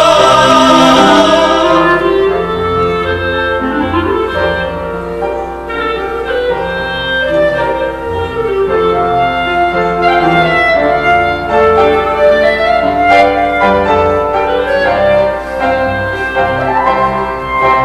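Instrumental tango interlude played on clarinet, piano and double bass. The clarinet's melody includes a few rising glides, over piano chords and low plucked bass notes.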